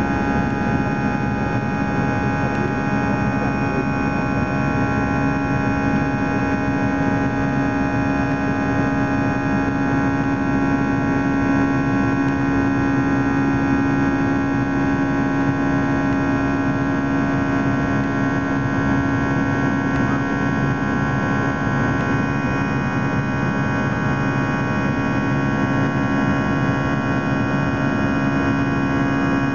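Airbus A319 jet airliner climbing after takeoff, heard from inside the passenger cabin: the steady roar of the engines and airflow, with several steady tones over it and a strong low hum.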